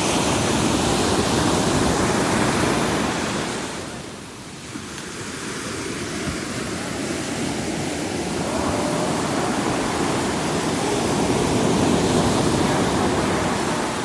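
Ocean surf breaking and washing up a sandy beach. It is loud at first, eases off about four seconds in, then builds again to a second peak near the end as the next wave comes in.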